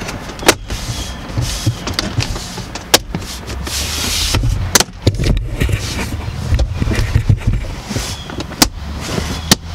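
Plastic centre-console trim of a 2010 Mazda CX-7 being pressed back into place by hand: about five sharp clicks as trim clips snap in, with plastic rubbing and scraping in between.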